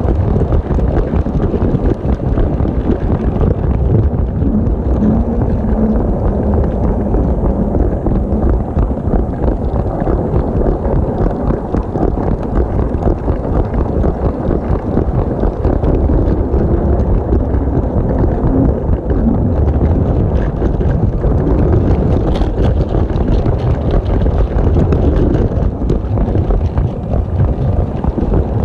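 Steady loud rumble and rattle of a LEGO train rolling along plastic track, heard from a camera riding on the locomotive: wheels and motor drive come through as a continuous low clatter.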